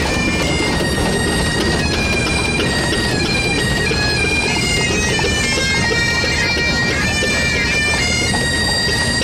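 Pipe band playing on the march: several bagpipes sounding steady drones under a chanter melody that steps from note to note.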